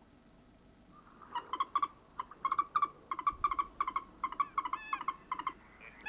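Common moorhen calling: a string of short, sharp calls in quick clusters starting about a second in, a few of them rising and then falling in pitch near the end.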